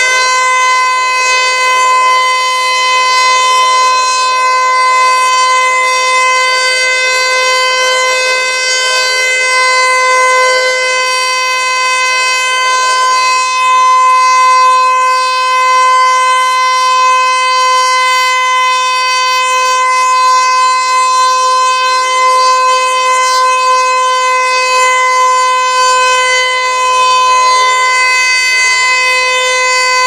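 Federal Signal Eclipse 8 electronic outdoor warning siren sounding its alert signal: one loud, steady tone held at a constant pitch, heard from inside a car.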